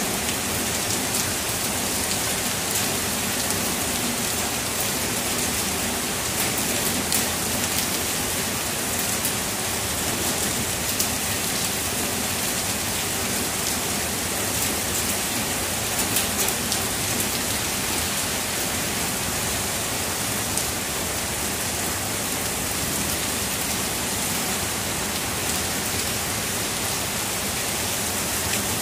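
Heavy rain falling steadily: a dense, even hiss with many scattered, close drop splats.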